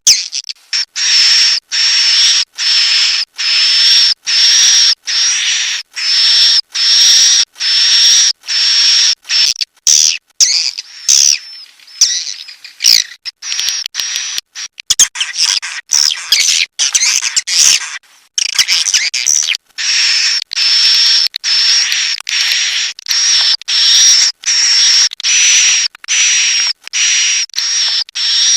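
Swiftlet roosting ('inap') calls: a steady run of buzzy, high chirps, about two a second. A more broken, twittering stretch comes around the middle.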